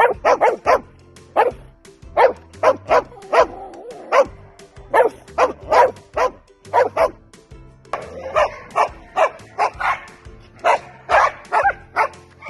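Dog barking loudly and repeatedly in quick runs of short barks, over background music with a steady low bass line.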